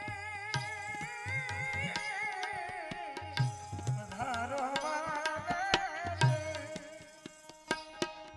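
Indian folk music: a hand drum playing deep bass strokes under a wavering melodic line that slides up and down. The drumming drops away near the end.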